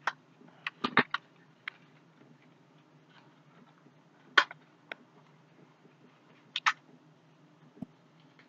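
Light scattered clicks and taps of a deck of playing cards and its paper wrapping being handled, the loudest about four seconds in, over a faint steady room hum.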